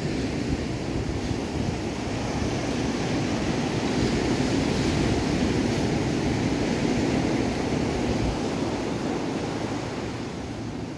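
Ocean surf washing up a sandy beach, a steady rush that swells about halfway through and eases near the end, with wind buffeting the microphone.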